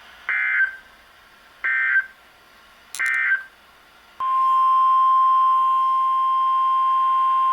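NOAA Weather Radio alert signal: three short bursts of the SAME digital header data, each under half a second, then about four seconds in the steady 1050 Hz warning alarm tone starts and holds. It is the tone sent ahead of a new warning broadcast, here a tornado warning.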